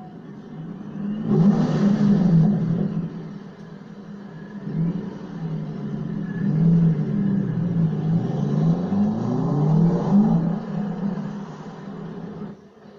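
Supercar engines revving and accelerating on the street, the engine note rising and falling in swells, loudest about a second and a half in and again near the end.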